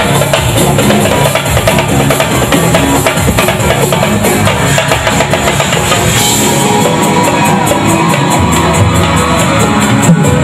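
Live percussion band playing a dense drum rhythm on a drum kit and other drums, with cymbals.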